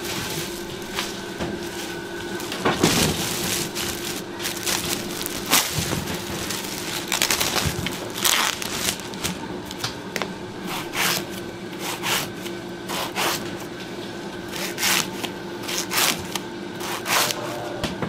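Plastic bags rustling and crusty bread rolls crackling and knocking as they are handled and set down on a metal tray, in irregular bursts over a steady low hum.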